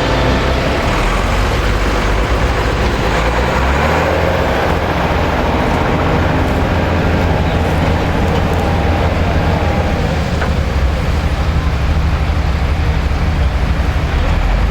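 Heavy diesel tractor engine running steadily under load, with the clatter and whir of maize-harvesting machinery over it.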